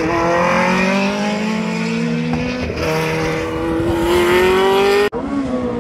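Group C sports-prototype race car engine accelerating hard, its note climbing in pitch, dropping at an upshift about halfway through, then climbing again. About five seconds in the sound breaks off abruptly and an engine note falling in pitch follows.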